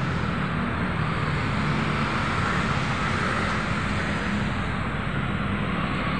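Steady road traffic noise, an even wash of sound with no single vehicle standing out.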